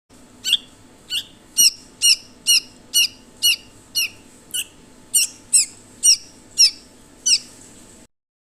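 Red-vented bulbul giving a run of about fourteen short, harsh, high calls, roughly two a second, over a faint steady hum.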